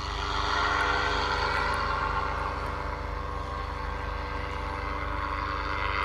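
Propeller engine of a small aircraft droning steadily as it flies past. It is loudest about a second in and slowly eases off.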